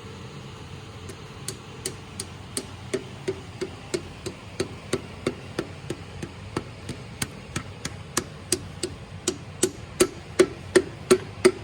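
A piston with its rings fitted being tapped down into a cylinder bore with a hammer: a long, even run of light taps, about three a second, growing louder toward the end.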